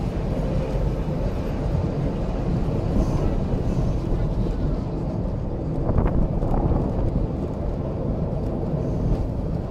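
1898 Hudson Bros-built electric tram C 29 running along its track: a steady low rumble and rattle of the wheels on the rails and the old car body, with a brief sharper sound about six seconds in.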